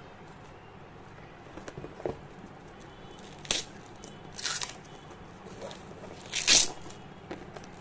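Clear plastic shrink-wrap being torn and pulled off a cardboard box by hand, in a few short crinkling rips; the loudest comes near the end.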